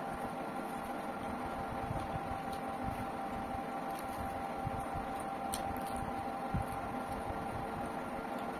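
Steady machine-like hum holding a few fixed tones, with faint chewing and mouth clicks from a person eating rice and fish by hand.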